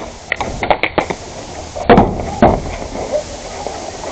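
Irregular sharp cracks of airsoft fire, several in quick succession in the first second and two more a little after the middle.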